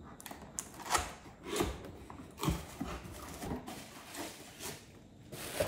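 Irregular light knocks and handling noises as glass tumblers and their packaging are moved and set down on a surface, about eight separate knocks.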